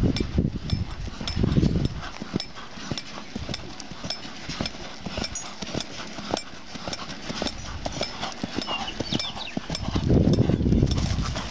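Hooves of a ridden paint horse striking dirt and grass, a steady run of soft clip-clop footfalls; a low rumble swells briefly at the start and again near the end.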